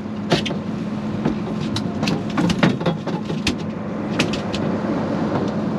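Boat engine idling with a steady low hum, with scattered sharp clicks and knocks.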